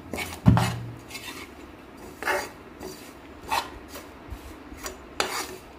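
Steel spatula scraping and stirring dry-roasted grated coconut and spice powders around a pan, in about half a dozen separate gritty scraping strokes, with a low knock against the pan about half a second in.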